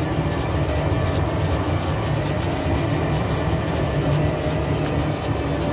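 A vehicle's engine running with a steady low rumble.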